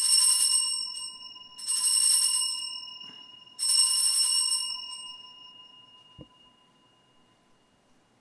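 Altar bells rung three times, each ring a bright jingle over a lingering tone that slowly fades, sounded at the elevation of the consecrated host during Mass. A faint knock about six seconds in.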